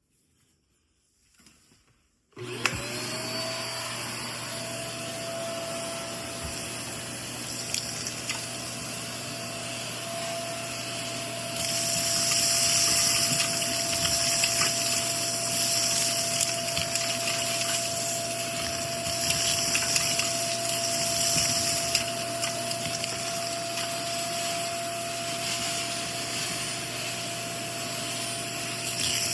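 Vacuum cleaner switched on about two seconds in, its motor whine rising quickly to a steady pitch and running on over a rush of air. After about twelve seconds the rushing hiss grows louder and swells and fades unevenly as it sucks up dust.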